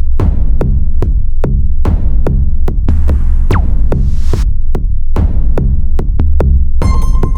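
Electronic dance music: a steady drum-machine beat over heavy bass. A rising hiss swell builds in the middle and cuts off suddenly, and a bright high synth chord comes in near the end.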